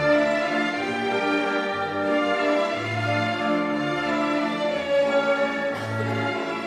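Orchestral music with bowed strings playing long, held notes.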